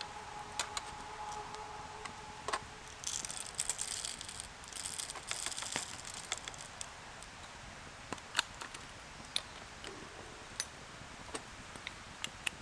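Small hard objects jangling and clinking for a few seconds, followed by sparse single sharp clicks. A faint steady tone stops about two and a half seconds in.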